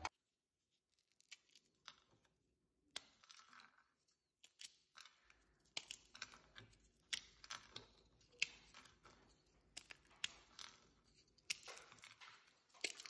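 Crisp fried semolina puris snapping and crumbling as a hand breaks them over a plate: a scattering of faint, sharp cracks at irregular intervals.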